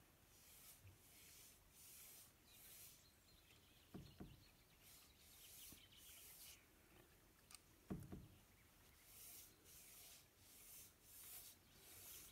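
Faint, repeated swishing of a large watercolour brush stroked across wet card as a wash is laid down, roughly one or two strokes a second. Two soft low thumps come about four and eight seconds in.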